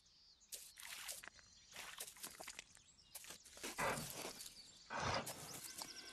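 Brown bear cub nosing and foraging in wet grass: a series of faint, irregular rustles and sniffs, with two louder ones about four and five seconds in.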